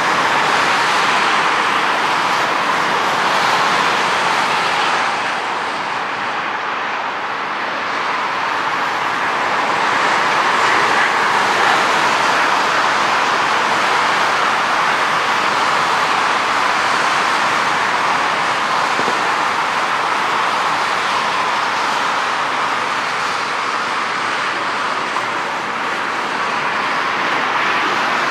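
Airbus A300-600 freighter's twin turbofan engines running at taxi power, a steady rushing jet noise that eases slightly about six seconds in and swells back a few seconds later.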